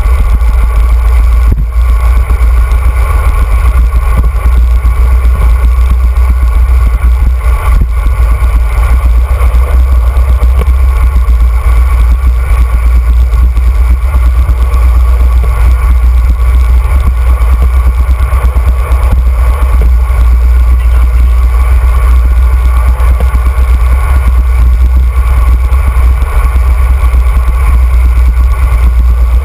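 Wind buffeting the microphone of a handlebar-mounted camera on a fast road-bike descent: a loud, steady, deep rumble.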